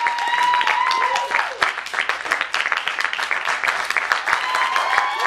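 Audience applauding with dense, steady clapping. A long, high, held note sounds over the clapping at the start and again near the end.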